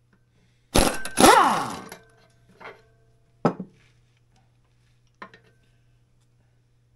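A handheld power tool runs in a short burst about a second in, its pitch sliding, followed by three light metallic clinks.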